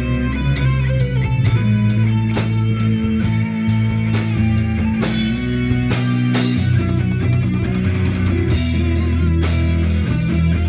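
A rock band playing live, with electric guitars over a drum kit.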